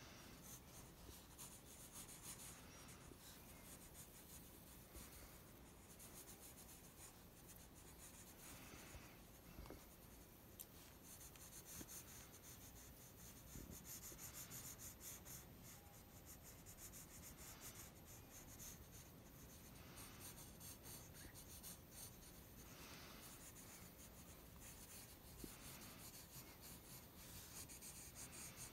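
Faint scratching of a graphite pencil scribbling on sketch paper, quick looping back-and-forth strokes that go on without a break.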